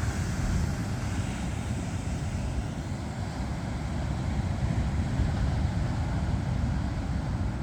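Ocean surf washing onto the beach, a steady hiss of breaking waves, with wind rumbling on the microphone.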